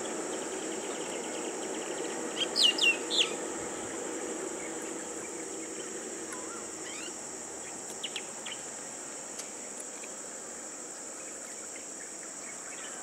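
Birds calling over a steady, high-pitched insect drone; a quick run of four sharp, falling calls about two and a half seconds in is the loudest sound, with scattered chirps later. A low hum of slow-passing car engines fades underneath.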